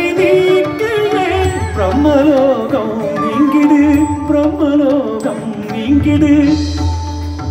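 Carnatic music: an ornamented melody with wavering, sliding notes, most likely sung, over a steady held tone and recurring low percussion.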